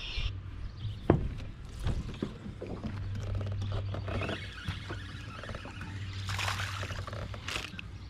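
Small fishing boat noises: a low steady hum with scattered light knocks and rustles, a sharper knock about a second in and a brief hiss a little past six seconds.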